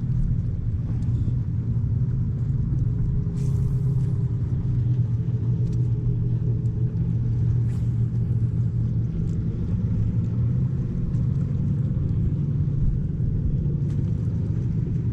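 Steady low engine drone that holds an even pitch throughout, with a few faint clicks.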